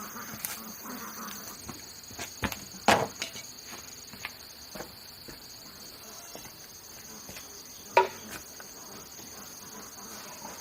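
Steady high-pitched chorus of forest insects, with a few short sharp knocks over it, the loudest about three seconds and eight seconds in.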